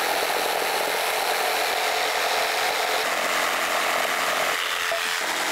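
Corded jigsaw running steadily as its blade saws through a poplar board on a 10-degree bevel cross cut.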